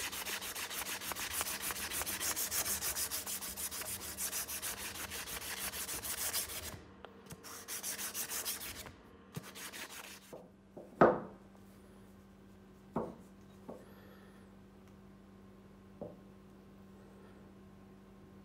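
Hunting knife handle being hand-sanded in rapid back-and-forth strokes, stopping about seven seconds in with a short second bout just after. Then one sharp knock on a wooden workbench, followed by three lighter taps.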